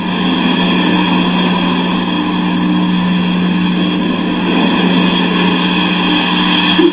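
A steady mechanical drone with a constant low hum that holds the same pitch throughout.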